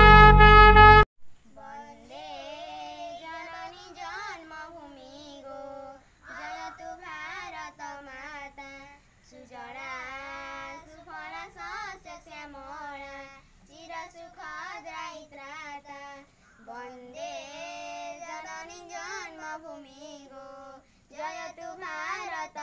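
Loud brass music cuts off abruptly about a second in. Then a child's voice sings a patriotic song unaccompanied, in long phrases with slides and vibrato.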